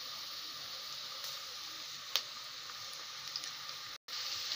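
Chopped onions frying in oil in a metal pot, a steady sizzle, with a single sharp click about two seconds in. The onions are at the stage of turning golden.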